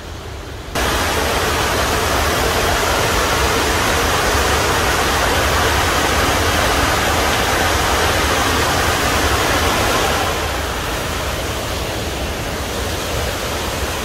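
Water rushing over the top of a waterfall (Burney Falls), heard close as a steady full-range rush with a low rumble. It comes in suddenly about a second in and eases a little near the end.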